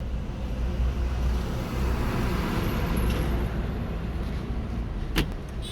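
Tata Altroz's 1.2-litre naturally aspirated three-cylinder petrol engine and road noise heard from inside the moving car: a steady low rumble with a wash of tyre and traffic noise. A single sharp click comes about five seconds in.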